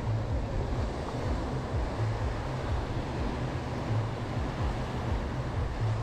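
Small Caribbean waves washing onto a sandy beach: a steady rush of surf, with wind buffeting the microphone and adding a gusting low rumble.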